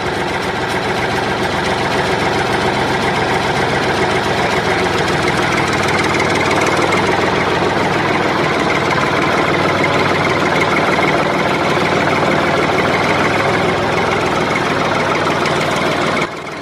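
A vehicle engine running steadily at a loud, even idle, laid on as a sound effect. It drops away suddenly near the end.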